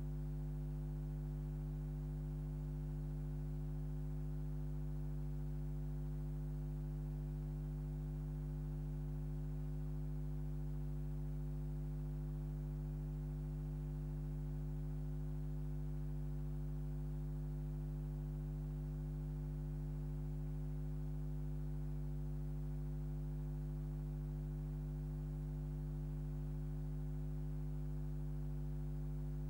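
Steady low electrical hum with a buzzing stack of overtones, unchanging in pitch and level.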